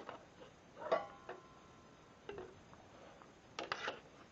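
Sharp metal clicks and knocks from a 12-inch Chicago Electric double-bevel sliding compound miter saw being handled as its head is tilted on the bevel, with the saw switched off. A few of the knocks ring briefly, and a quick rattle of clicks comes near the end.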